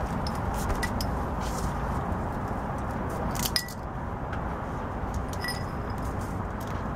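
Light metallic clicks and clinks of hand tools and a car jack being handled, with one sharper clink that rings briefly about halfway through, over a steady low rumble.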